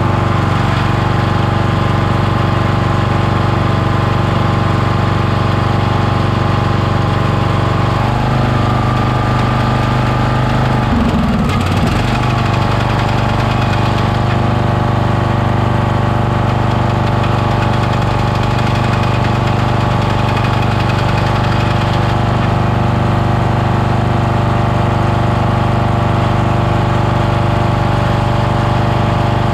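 Kohler engine of a Toro LX460 lawn tractor running steadily. About eight seconds in its note shifts slightly, and around eleven seconds it briefly dips in pitch and picks back up.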